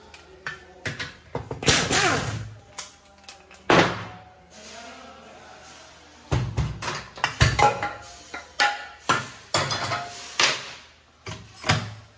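Metal tools and gearbox parts clanking and knocking during disassembly of a manual gearbox. It is an irregular string of sharp knocks and clatters, some with a brief metallic ring, loudest about two seconds in and again from about six to eight seconds.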